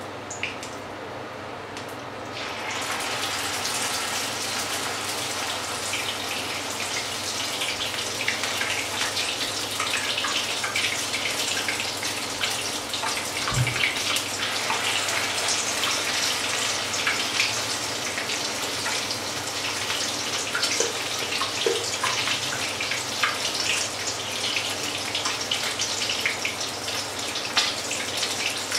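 Hot oil in a frying pan sizzling and crackling as spoonfuls of batter are dropped in to fry. The sizzle starts suddenly about two seconds in and goes on as a dense crackle, with a single low knock about halfway through.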